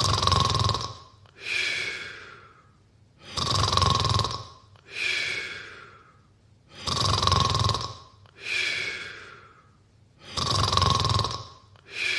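Snoring ringtone: a person snoring in a regular loop, about four snores, one every three and a half seconds. Each is a loud rasping snore followed by a softer airy breath with a falling whistle-like tone.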